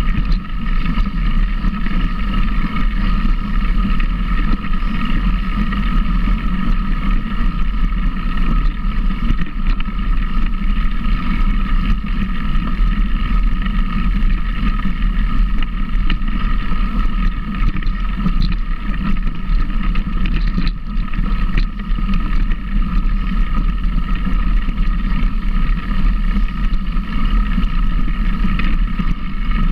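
A motor running steadily at an unchanging speed with no revving, mixed with wind noise on the microphone.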